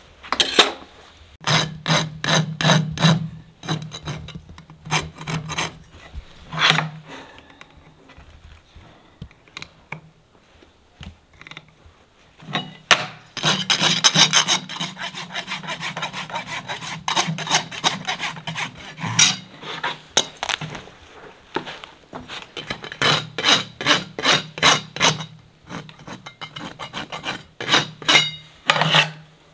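A farrier's rasp drawn back and forth over a shod horse hoof's wall, about three strokes a second in several runs, with a quieter pause in the first half.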